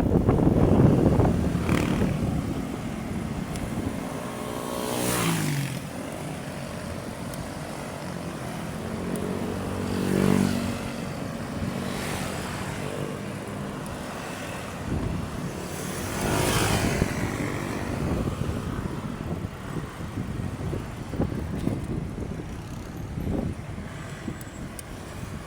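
Road traffic: motor vehicles passing one after another. One engine note falls in pitch as it goes by about five seconds in, and others swell past near ten and sixteen seconds.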